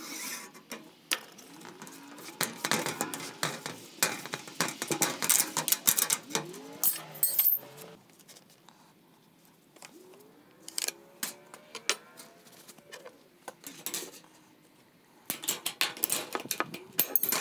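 Thin metal soffit panel being handled and cut on a bench: a dense run of rattling, scraping clicks, a quieter stretch in the middle, then tin snips clicking through the panel end near the finish.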